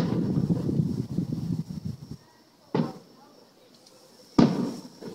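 Aerial firework shells bursting: three sharp bangs. The first is followed by about two seconds of low rolling rumble, a second comes near the middle, and the loudest comes near the end.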